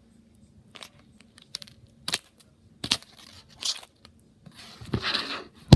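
Slime being squeezed and stretched by hand, giving irregular sticky clicks and crackling pops, with a longer crackle about five seconds in.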